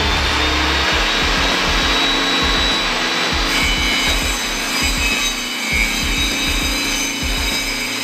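Homemade table saw running, its circular blade spinning free in the table slot with a steady rushing noise; about three and a half seconds in, a higher whine joins it.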